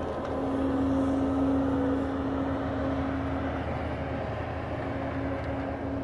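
Diesel engines of heavy logging machines, a skid steer and a tracked feller buncher, running steadily with a continuous drone.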